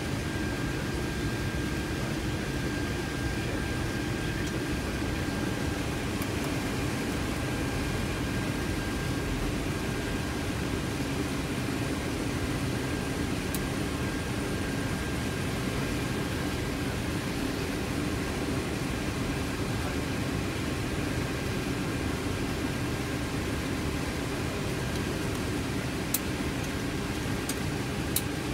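Cockpit noise of a C-17 Globemaster III taxiing: a steady rush of its four turbofan engines at low power mixed with ventilation hiss, with a thin steady whine over it. A few faint clicks near the end.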